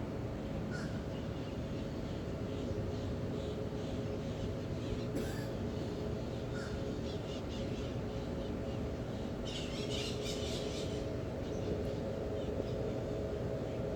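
Birds calling now and then, with short crow-like calls and a brief burst of high chattering about ten seconds in. Underneath is a steady low wash of seaside surf and a constant low hum.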